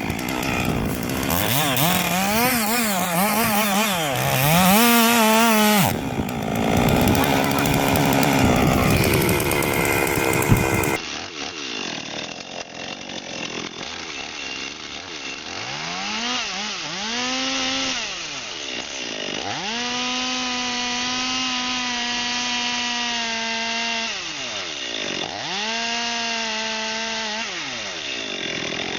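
Chainsaws revving and cutting. For the first part the saw's pitch wavers up and down. After a sudden change about eleven seconds in, a saw speeds up to full throttle three times, holding steady for a few seconds while it cuts before dropping back to idle.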